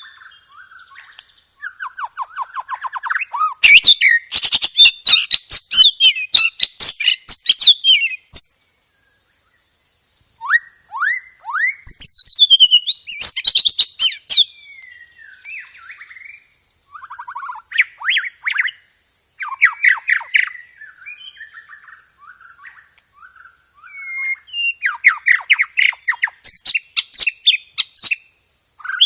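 White-rumped shama (murai batu) singing in phrases a few seconds long, with short pauses between them: whistles and quick trills, broken by loud bursts of very fast, sharp notes. A faint steady high tone runs underneath.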